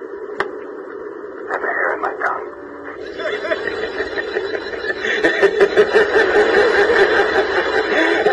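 A man's message on an answering machine: spitting noises over the small speaker, then a creepy, drawn-out snicker, 'hehehehe', that grows louder from about five seconds in.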